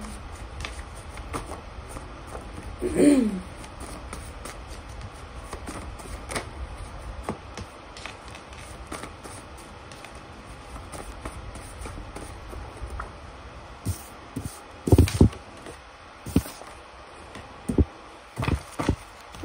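A deck of cards being shuffled by hand, with soft clicks and rustling, then several cards laid down onto the table with a few low thumps in the last few seconds. A brief, loud falling sound comes about three seconds in.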